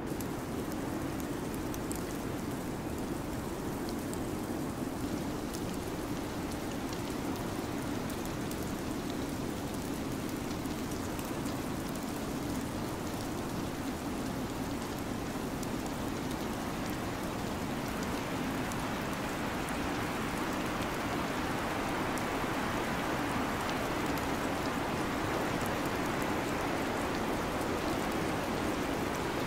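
Steady rain-like hiss of a snowstorm ambience track, with a fuller low band underneath and faint scattered ticks; the hiss grows brighter about two-thirds of the way through.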